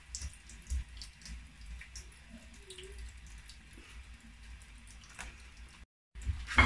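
Faint kitchen room noise with scattered light clicks and a low rumble. After a sudden cut near the end, dishes and a frying pan clatter loudly.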